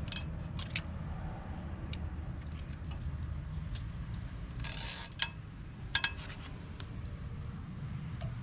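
Nylon zip ties being pulled tight: scattered sharp clicks, and a loud, brief ratcheting rasp a little before the middle as a tie is zipped, over a low steady rumble.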